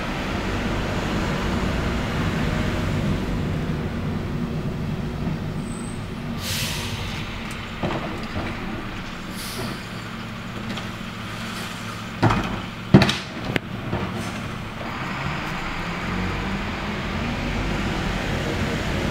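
McNeilus rear-loader garbage truck's diesel engine running steadily, with short air-brake hisses about a third and half of the way in. A few loud bangs just past the middle as a plastic trash cart is knocked against the rear hopper while being emptied, then the engine grows louder as the truck moves off.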